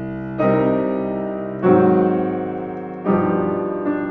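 Bassoon and piano playing slow, long notes, a new note starting about every second and a half and each one tapering off. The held notes carry the bassoon's vibrato.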